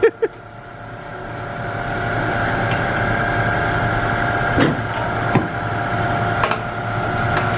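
A steady mechanical hum with a couple of steady tones, building up over the first second or two, with a few sharp clicks of metal parts being handled.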